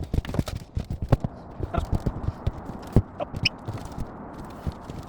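Rapid, irregular knocks, taps and clatters of work inside a caravan, sped up in time-lapse audio, with a few short squeaky blips among them.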